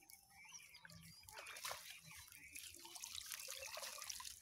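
Faint water dripping and trickling, with wet rustling, as water hyacinth and mud are pulled out of a bamboo push net.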